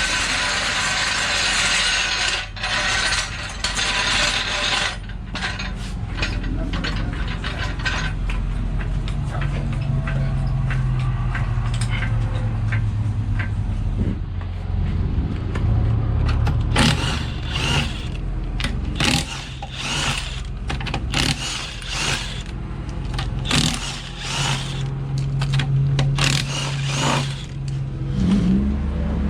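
Hand tools working on a race car's wheels during a tire swap: ratcheting, metal clicks, knocks and scrapes, densest in the second half, over a steady low drone. A hissing rush fills the first few seconds.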